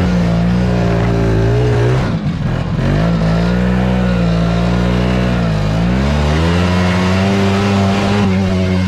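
Snowmobile engine running under way, heard from on board. The revs drop sharply about two seconds in and climb back, dip again near the middle, then hold steady.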